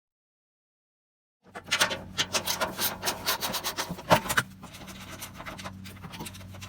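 After a second and a half of dead silence, a quick run of irregular clicks and scraping as the bolted cover in front of the oil filter is worked loose. It settles into quieter rubbing about halfway through.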